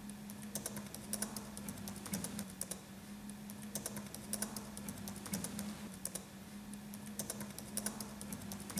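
Typing on a laptop keyboard: an irregular run of soft key clicks, over a faint steady hum.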